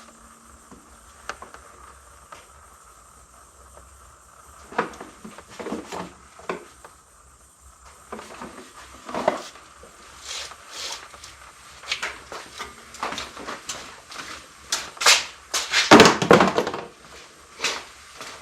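Irregular clicks, knocks and clatter of things being handled, sparse at first and busier and louder in the second half, while hydraulic oil is being topped up on a zero-turn mower.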